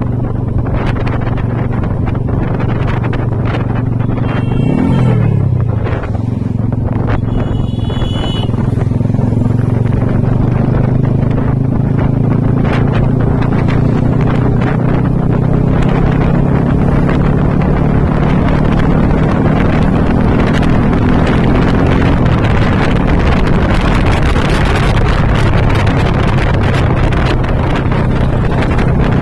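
Motorcycle engine running steadily under way, with wind rushing over the microphone. About five seconds in, the engine pitch falls briefly as the revs drop, then settles again. Two short high-pitched tones sound about four and eight seconds in.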